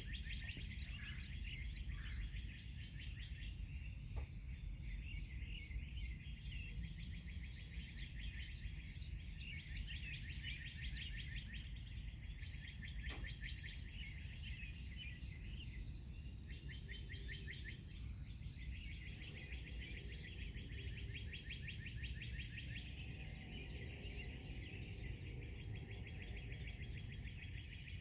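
Songbirds chirping and trilling in rapid repeated notes, several at once, over a steady low rumble of outdoor background noise.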